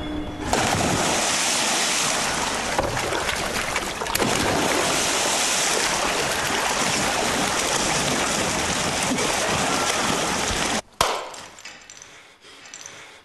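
A person thrashing and splashing in deep water, a continuous heavy splashing. About eleven seconds in it cuts off sharply with a single knock, leaving quiet room sound.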